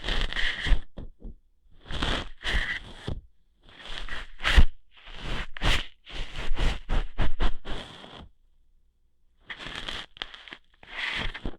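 Close-miked ASMR ear-hair plucking: short bursts of scratching and rustling right at the microphone, in clusters with brief pauses, and a longer pause a little past the middle.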